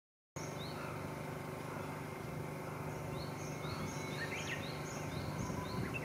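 Outdoor pond-side ambience: a steady low hum with a run of short, high chirps repeating about twice a second, plus a few brief warbling calls near the middle.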